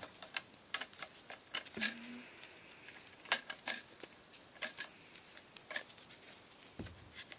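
Foam darts being pushed one by one into a clear plastic Nerf dart magazine: scattered light plastic clicks at irregular intervals.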